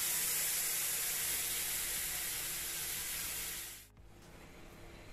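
Milk poured into a hot pan of grated carrots frying in ghee, sizzling with a loud, steady hiss that cuts off abruptly near the end, leaving only a faint simmer of the milk bubbling in the pan.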